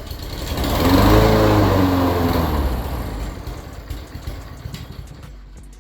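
Small lawnmower engine revving up and then winding back down, its pitch rising to a peak about a second in before falling away. It surges as the throttle is worked, on a carburetor the owner means to replace.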